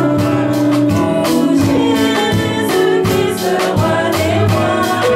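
A woman singing a gospel hymn into a microphone, other voices joining, over a band accompaniment with a steady beat.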